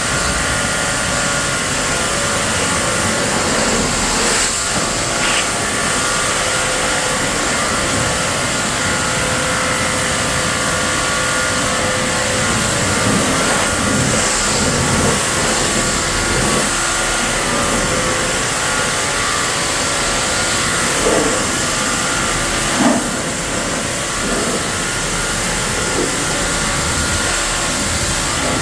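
Pressure washer running steadily, its motor and pump giving a steady hum under the loud hiss of the high-pressure water spray.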